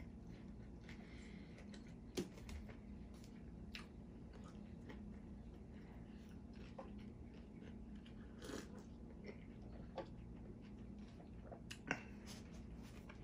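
A person biting and chewing a soft submarine sandwich, with scattered soft mouth clicks and a couple of sharper clicks. Near the end the sandwich's paper wrapper rustles, all over a faint steady low hum.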